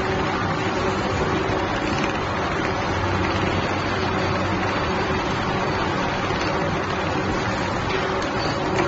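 Sokee 360-degree automatic template sewing machine running, its needle stitching rapidly while the template is driven through a grid pattern: a steady, dense mechanical whir with a low hum that comes and goes.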